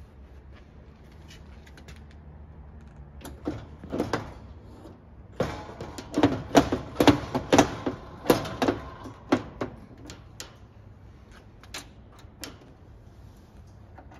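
Bertazzoni oven door being fitted onto its hinges: a run of metal clicks and clunks with some ringing, densest and loudest in the middle, then a few lighter clicks as the hinge is worked.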